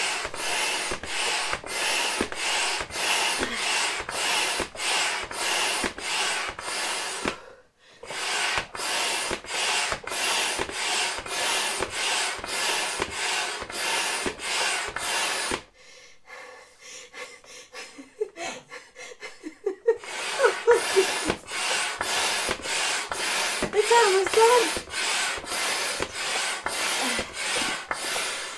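Intex Double Quick III double-action hand pump inflating an air bed through its hose: quick, even pumping strokes, each a rush of air, about two to three a second. The pumping stops briefly about a quarter of the way in, then pauses for about four seconds in the middle, with a few short squeaks as it starts again.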